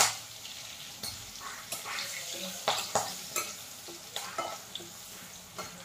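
A metal spatula scraping and tapping around a kadai while oil sizzles with a tempering of cumin seeds, green chillies and bay leaf. A sharp clink comes right at the start, then irregular scrapes and taps over a steady sizzle.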